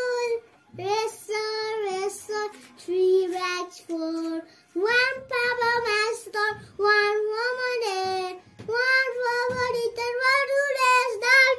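A young boy singing in a high child's voice, in short phrases of held notes with brief pauses between them.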